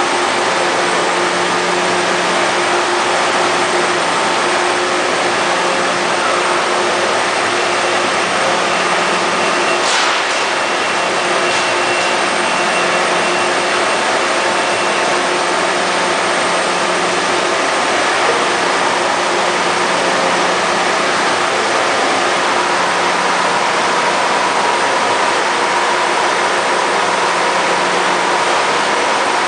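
Ingersoll dual-head bridge CNC planer mill running under power: a steady mechanical hum and hiss with several held tones, and a short click about ten seconds in.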